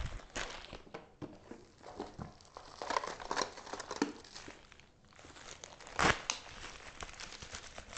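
Crinkling and rustling of a colourful package's wrapping as it is cut with a knife and torn open by hand, with a louder tear about six seconds in.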